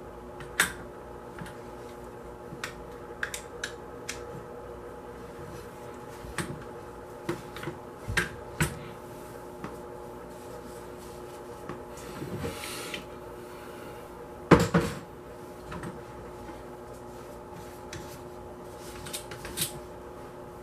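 Scattered clicks and clacks of an AR-15 pistol being handled, with parts snapping, sliding and scraping. The loudest is a sharp metallic clack about two-thirds of the way through. A faint steady hum runs underneath.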